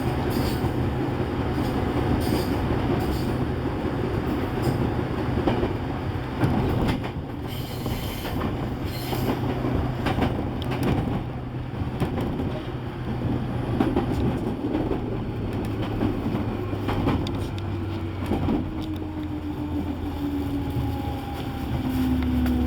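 Electric commuter train running on the Nambu Branch Line, heard from the front car: a steady rumble and hum with wheels knocking over rail joints and some wheel squeal. Over the last few seconds a tone falls in pitch.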